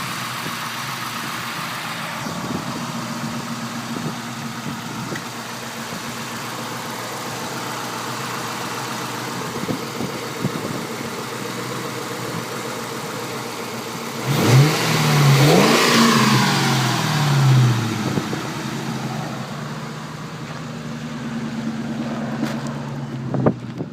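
1997 Ford Mustang SVT Cobra's 4.6-litre DOHC V8 idling steadily. About two thirds of the way through it is revved up twice, the pitch rising and falling, then it settles back to idle.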